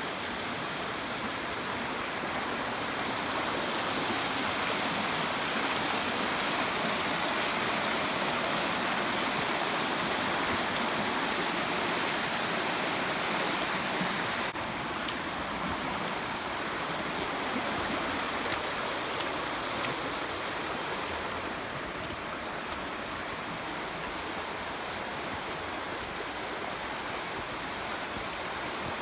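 Steady rush of stream water flowing over rocks, an even hiss-like wash that shifts slightly in level about halfway through and again about three quarters through.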